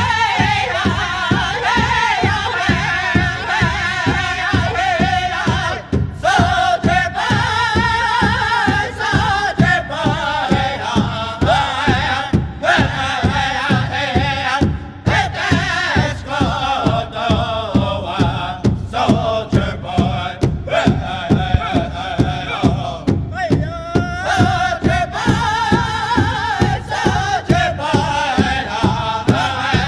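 A song: a singing voice carrying a wavering melody over a steady drum beat.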